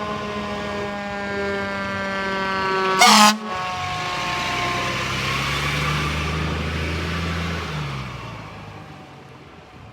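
Fire engine's mechanical siren winding down, its pitch slowly falling, cut off by one short, very loud air horn blast about three seconds in. After the blast the truck's engine runs loudly for a few seconds, then fades away near the end.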